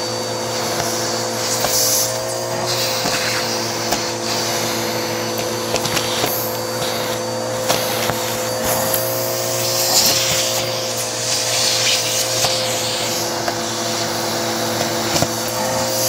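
Bissell CleanView vacuum running steadily, its crevice tool sucking over carpet, with a constant motor drone whose pitch wavers slightly now and then and scattered small clicks of picked-up grit.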